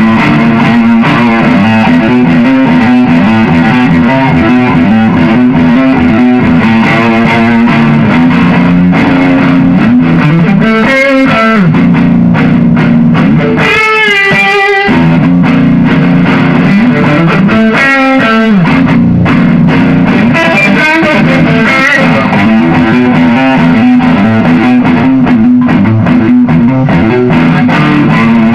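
Electric guitar being played, with bent notes wavering in vibrato about halfway through. The recording is loud enough to clip and crackle throughout.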